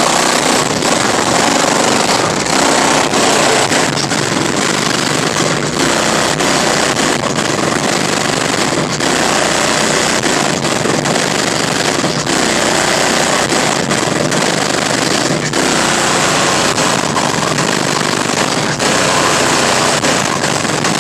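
Car audio system with speakers mounted in a sedan's rear window, played at extreme volume: loud, heavily distorted music with a dense, rattling, clipped sound.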